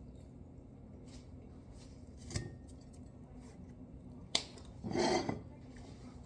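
Crispy pastry being bitten and chewed with faint crunches, then a sharp knock and a scrape lasting about half a second as a large plate is pushed along the kitchen countertop.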